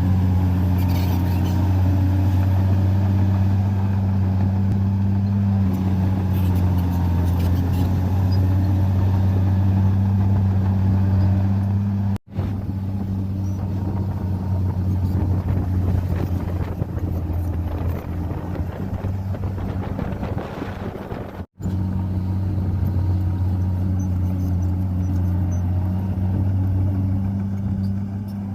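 Komatsu bulldozer's diesel engine running steadily with a deep, even hum, working as it pushes soil. The sound drops out abruptly twice, about twelve and twenty-one seconds in, and the middle stretch is rougher and noisier.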